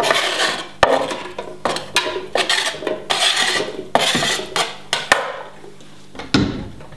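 A cleaver chopping cherry tomatoes on a wooden cutting board: irregular knife strikes and scraping against the board, with a single thump near the end.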